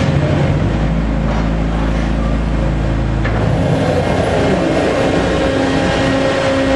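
Omag Phoenix machine running steadily with a hum during axis travel, a deep rumble underneath for the first half, and a couple of faint sharp pops. The popping during travel is, to the uploader, not a mechanical fault, and its frequency changes with the machine settings.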